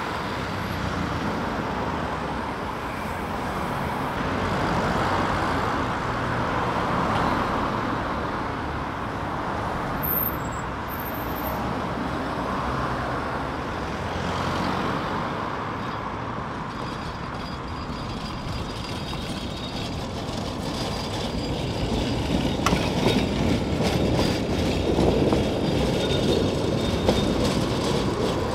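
Road traffic passing, with a Tatra K2YU articulated tram running along its tracks. Over the last several seconds the sound grows louder and rougher with a run of irregular knocks and rattles as the tram goes by.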